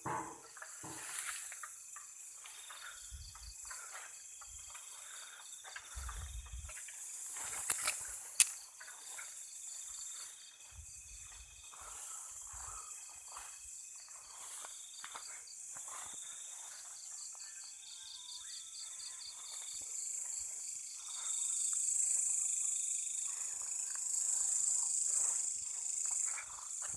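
Night insects, crickets among them, keep up a steady pulsing chorus, with rustling through undergrowth and a few low bumps. A single sharp click about eight seconds in is the loudest sound.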